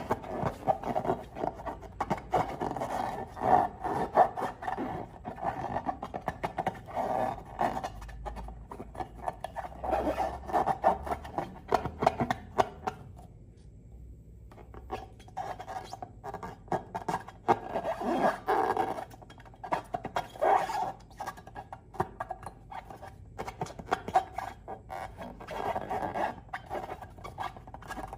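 Slime being squished and worked by hand, in bursts of sticky crackling and squelching clicks, with a short pause about halfway through.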